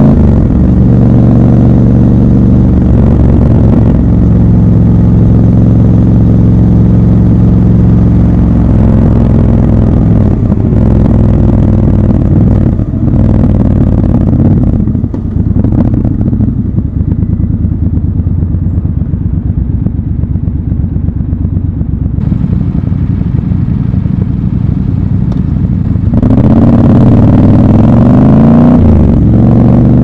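Triumph Scrambler 1200 XC's 1200 cc parallel-twin engine from the rider's seat. It runs steadily at cruising revs, then eases off and runs at low revs through the middle. About four seconds from the end it accelerates hard with rising revs and a gear change.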